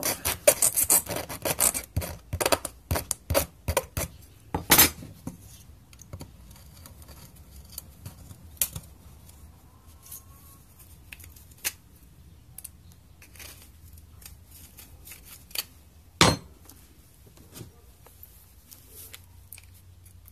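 Hand file rasping on the edge of a small tin can to take off a drilling burr, in quick strokes for the first five seconds or so. After that, only scattered light scrapes and clicks, with one sharper knock about sixteen seconds in.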